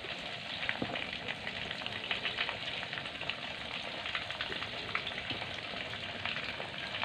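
Steady crackling sizzle: a dense run of fine ticks over a hiss, unchanging throughout.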